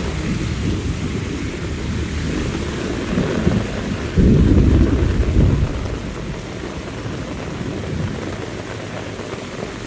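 Steady heavy rain, with a low rumble of thunder breaking in suddenly about four seconds in and lasting over a second.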